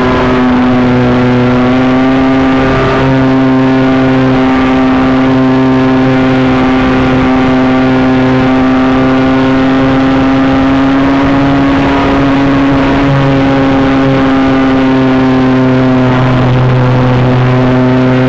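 Electric motor and propeller of a TW-747 RC model Cessna running in flight, heard from the onboard camera: a loud, steady buzzing drone over wind hiss, its pitch rising and falling slightly with the throttle.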